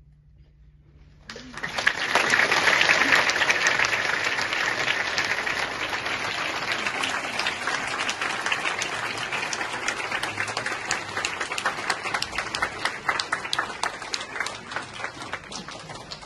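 Audience applause breaking out suddenly after a brief hush, about a second in, loudest over the next few seconds and then slowly thinning out into more separate claps.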